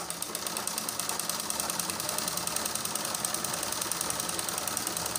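Treadle-driven manual sewing machine running steadily while stitching cotton fabric: a rapid, even mechanical clatter.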